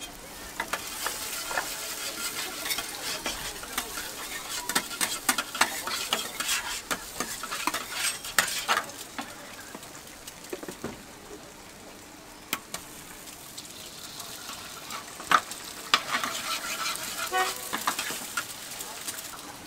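Food sizzling on a flat steel teppanyaki griddle as eggs and vegetables fry, with a metal spatula scraping and clicking against the plate. The sizzle dies down about halfway through and picks up again near the end.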